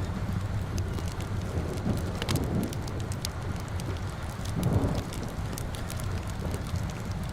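Steady rain with a low rumble underneath, and a wood fire crackling with frequent sharp pops. A louder low surge comes about two-thirds of the way through.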